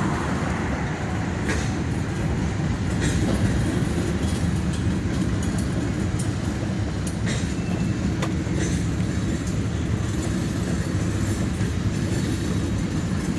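Freight train cars rolling past in a steady low rumble, with scattered sharp clicks and clanks from the wheels and couplers.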